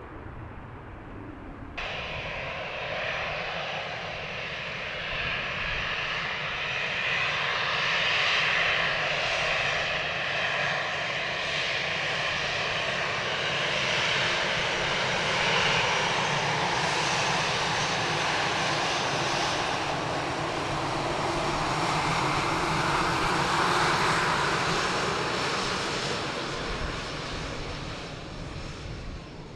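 Jet airliner engines running loud as the aircraft moves along the runway, a dense rush with a faint high whine. It starts abruptly about two seconds in, swells and eases over the next twenty-odd seconds, and fades near the end.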